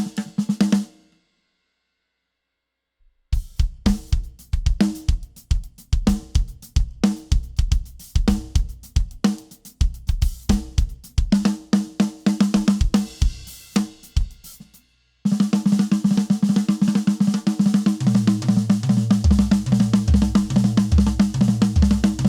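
Drum kit warm-up: a few hits, then a pause of about two seconds, then grooves and fills on snare, bass drum and cymbals. After a short break, a fast continuous roll runs to the end, with bass drum hits underneath.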